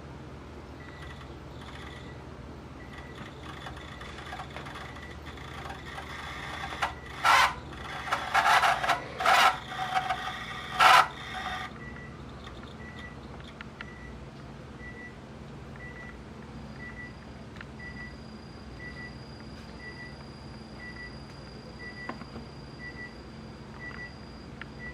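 Pioneer CT-W840R cassette deck playing a tape in its right-side transport, which is struggling: a steady low hum, broken by a cluster of loud, harsh mechanical noises about seven to eleven seconds in. A faint short beep repeats about once a second.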